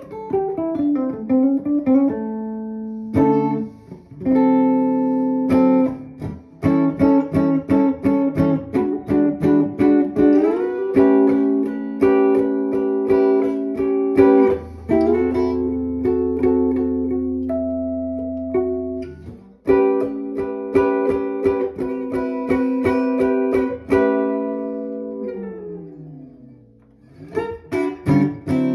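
Hollow-body electric guitar played through a small Yamaha combo amp: a blues of picked notes and held chords, with a rising slide in pitch about ten seconds in and a long falling slide near the end.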